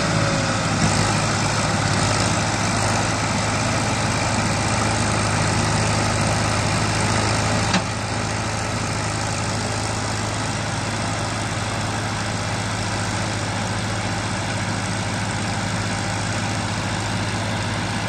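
Diesel tractor engines running steadily as a red tractor and a green John Deere tractor pull a loaded sugarcane trolley through rain-soaked field mud. A single sharp click comes about eight seconds in, after which the engine sound is slightly quieter.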